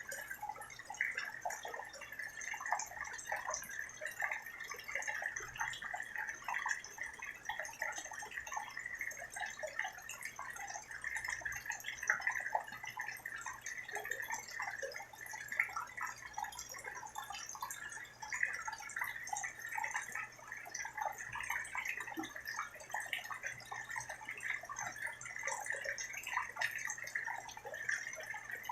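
Steady rain falling, heard as a dense, unbroken run of many small drips.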